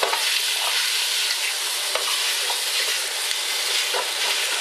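Diced beef sizzling hard in a very hot stainless-steel stockpot, stirred with a spoon, with a few short scrapes and knocks against the pot.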